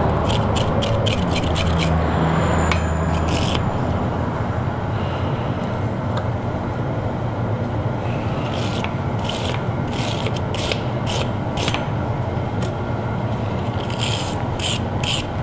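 A wire brush is being scrubbed back and forth over a small forged iron pendant on the anvil to knock off loose scale. The strokes come at about three a second in runs, with a pause in the middle. A steady low hum runs underneath.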